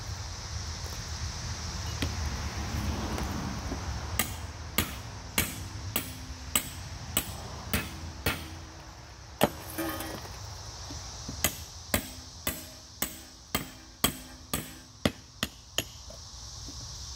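A hand hammer beating on an old steel safe, knocking out the concrete fill between its outer jacket and inner wall. After a few sparse knocks comes a long run of sharp blows about two a second, beginning about four seconds in, some of them ringing briefly off the metal.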